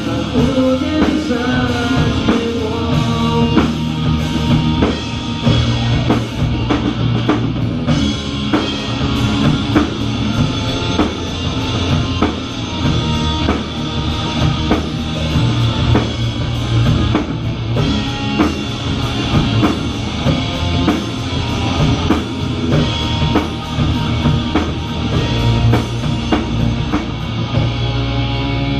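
Rock band playing an instrumental passage: a drum kit beating steadily under electric guitar and bass. Near the end the drums drop away, leaving ringing guitar notes.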